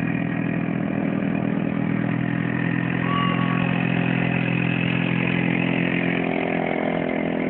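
Motor vehicle engine idling steadily, an even low hum that shifts slightly about six seconds in.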